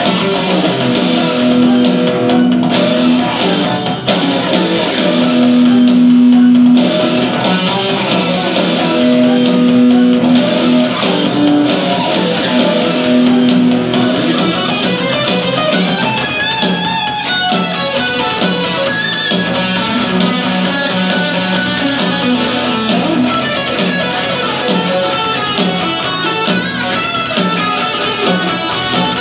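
Electric guitar playing rock music. It holds long notes through the first half, then moves into quicker runs with wavering, bent pitches from about halfway on.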